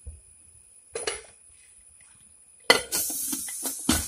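Aluminium pressure cooker lid being fitted and closed. There is a short knock about a second in, then from near three seconds a loud metal-on-metal clatter and scrape, with a sharp knock near the end as the lid seats.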